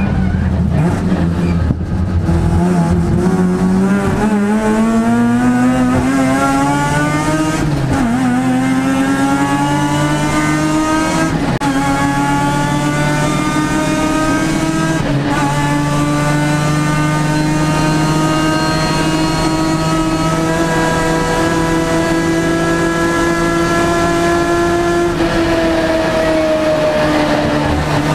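Mazda RX-7 race car's rotary engine at full throttle, heard from inside the cabin. The pitch climbs steeply with two brief drops at upshifts in the first twelve seconds, then rises slowly for a long stretch and eases off a little near the end.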